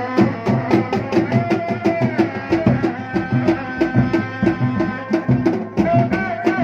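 Sundanese Reak ensemble music: hand-beaten drums keep up a fast, steady beat, several strokes a second, under a melody of held, gliding notes.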